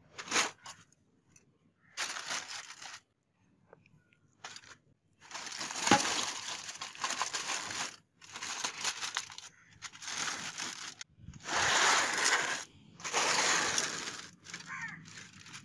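Aluminium foil crinkling and rustling in repeated bursts as it is handled and spread out, with one sharp knock about six seconds in.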